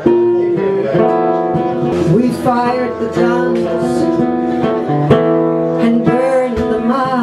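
Music: an acoustic guitar strummed under held, wavering melodic notes, in an instrumental passage of a slow ballad.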